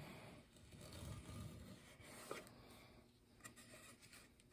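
Faint soft scraping of a freshly sharpened Buck Bros bent chisel paring thin shavings off the edge of a wooden board, mostly in the first couple of seconds, followed by a few light clicks.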